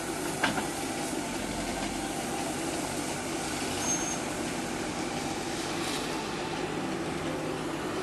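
Backhoe loader's diesel engine running steadily as the backhoe bucket digs into soil, with a sharp knock about half a second in.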